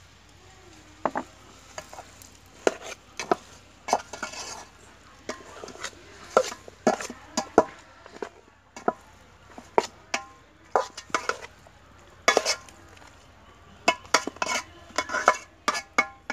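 A metal spoon stirring food in a cooking pot, knocking and scraping against the pot in irregular clinks about twice a second, some of them ringing briefly.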